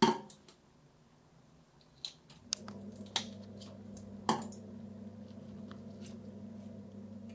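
Wet handling of a hairtail fish being gutted over a stainless steel sink: a few sharp clicks and squelches. A steady low hum sets in about two and a half seconds in.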